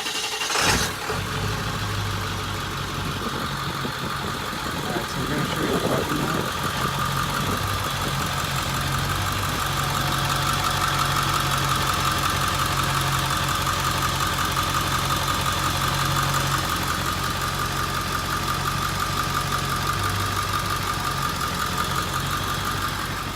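Ford 7.3 Powerstroke V8 turbodiesel idling steadily.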